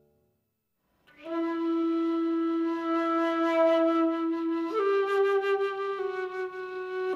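Solo flute music beginning about a second in: a long held low note, then a step up to a higher note about five seconds in, followed by further slow held notes.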